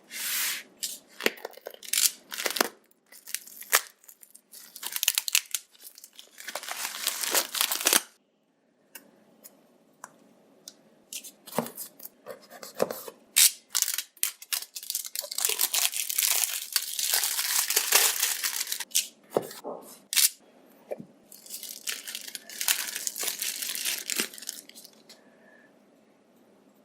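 Packaging being torn open and crinkled by hand during an unboxing, in repeated bursts of tearing and rustling with small clicks and taps between them.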